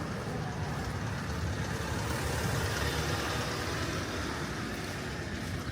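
A motor vehicle passing, a steady rumble that swells about halfway through and then eases off.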